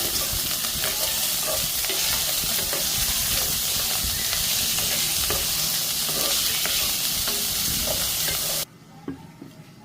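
Food frying in a pan, a loud steady sizzle with light knocks from stirring; it cuts off abruptly near the end.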